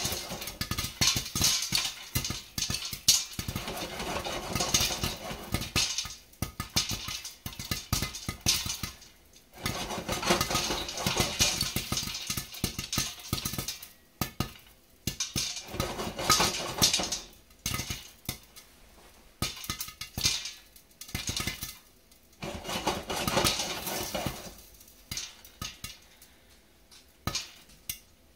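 Soaked popcorn kernels popping in a covered stainless steel pot on a gas stove, the pops low-pitched thumps. Every few seconds comes a bout of a couple of seconds of rattling and scraping as the pot is shaken on the burner grate.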